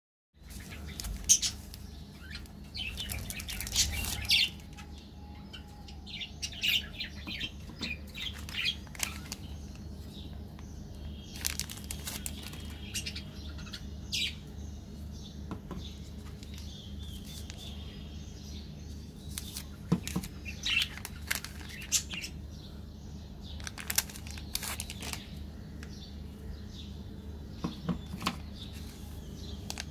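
Plastic candy-bar wrappers crinkling and tearing as they are opened by hand, in irregular bursts of crackle, over a steady low hum.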